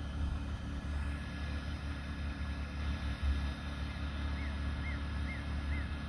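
Portable generator and the bee vacuum it powers running steadily, a low drone with a faint steady whine, while bumble bees are vacuumed out of a ground nest for relocation. Four short high chirps sound over it in the second half.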